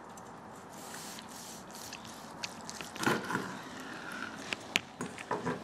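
Smoked brisket being sliced and handled on a cutting board: soft wet squishing and scraping of knife and meat, with a few sharp taps. The loudest tap comes near the end.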